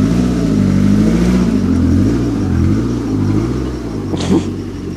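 Toyota MR2's engine revving up and down, the pitch wavering for about three seconds before easing off. A short sharp sound about four seconds in.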